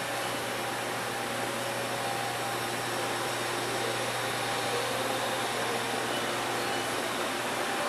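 Steady hum and hiss of a Haas VF-3YT CNC vertical machining center running, with faint steady tones over it; a low hum drops out near the end.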